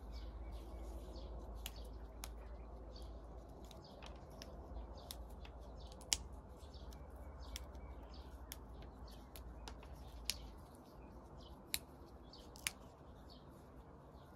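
Fresh flat green beans being snapped and trimmed by hand, a string of crisp snapping clicks with a few sharper ones in the second half. Birds chirp faintly.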